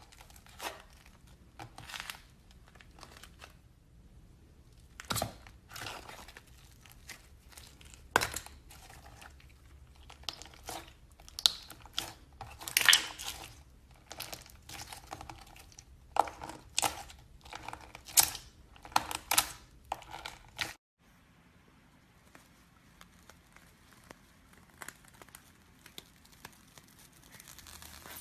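Slime being worked, with irregular crackling pops and clicks as air bubbles in it burst, coming in clusters. The popping stops abruptly about 21 seconds in, leaving only a few faint clicks.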